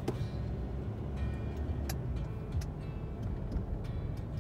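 A car driving slowly, heard from inside the cabin: a steady low engine and road rumble with a few light clicks.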